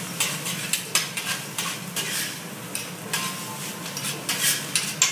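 Metal spatulas scraping and clacking on a steel teppanyaki griddle as fried rice is chopped and turned, in quick irregular strokes, over the sizzle of the rice frying. The scraping gets denser near the end.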